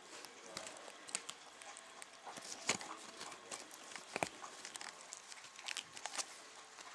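Irregular light taps, clicks and scuffles of Chinese crested puppies moving about on the floor, a few a second, with two sharper clicks near the middle.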